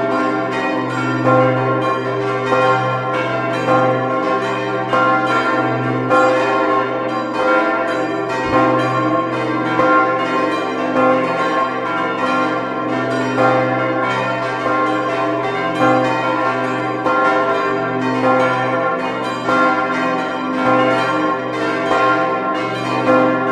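Several church bells in a bell tower ringing together in a full peal. The strikes overlap several times a second over the steady hum of the bells' ringing tones.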